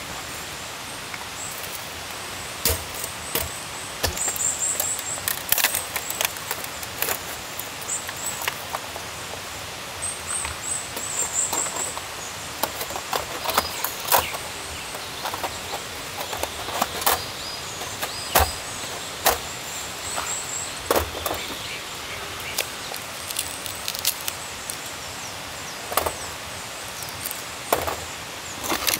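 Irregular sharp knocks and clacks of wood being handled, a few with a duller thud. Underneath are short, repeated high buzzy chirps of insects.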